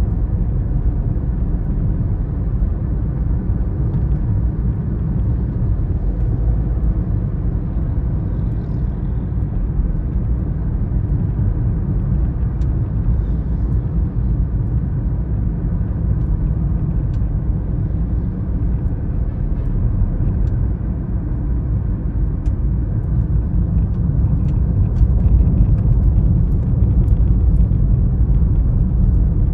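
Steady low rumble of engine and road noise heard from inside a car's cabin while following a loaded dump truck, with a few faint light ticks in the second half. It grows a little louder near the end.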